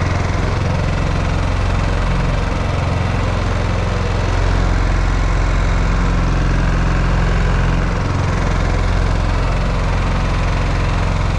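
GenMax GM14000i-HSB dual-engine inverter generator running on propane with both engines going, a steady low engine hum. It grows a little louder for a few seconds in the middle, then settles back.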